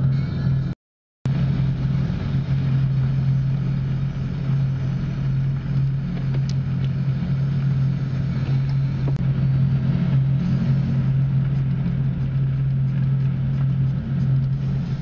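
A vehicle's engine running steadily with a low, even hum, broken by a half-second dropout about a second in.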